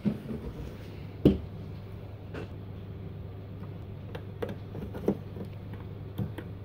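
Handling noises at a Pioneer XDJ-RX DJ controller as a cover is lifted off and a cable is plugged in: a few scattered knocks and clicks, the sharpest about a second in, over a steady low hum.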